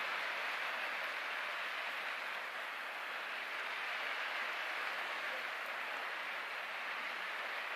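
Fingertips rubbing and crumbling dry scenic flock and tea leaves close to the microphone: a steady, gritty rustle.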